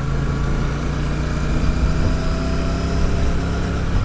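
Royal Enfield Shotgun 650's 648 cc parallel-twin engine running steadily at a gentle cruise.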